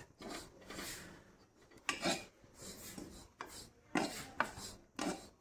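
A spatula scraping and stirring dry cannabis leaves around a metal wok, in a string of short, irregular scraping strokes.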